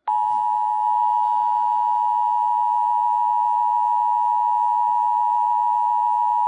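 Emergency Alert System attention signal: a steady two-tone alert (853 and 960 Hz), held unbroken, announcing an emergency alert. It comes on abruptly right after the data burst of the alert header.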